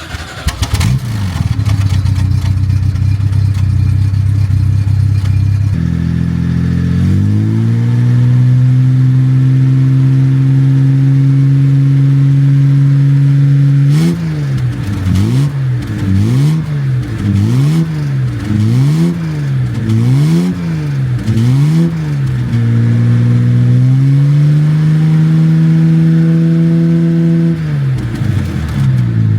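A car engine running, its speed stepping up to a fast idle, then revved up and down in an even rhythm about once a second for several seconds before settling steady again, and falling away near the end.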